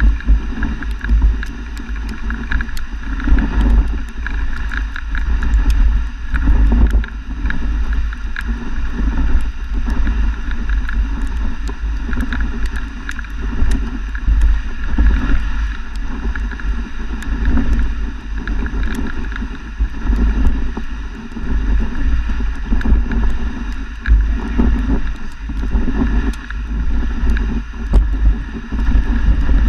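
A dog sled travelling over snow, heard from a camera mounted on the sled: a continuous low rumble and hiss of the runners sliding, with frequent small knocks and rattles as the sled bumps along.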